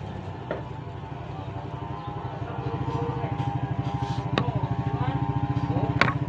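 A small engine running steadily with a fast low throb, growing louder from about halfway through, with a few sharp clicks.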